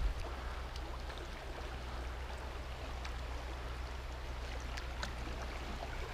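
River water running steadily around the wading angler, a low even rush, with a few faint drips and small splashes from hands working in the water.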